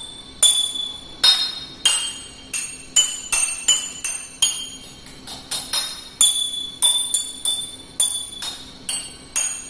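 Glass drinking glasses holding different amounts of water struck one after another, about two to three times a second, each giving a short ringing ping at its own high pitch. The differing water levels set each glass's pitch.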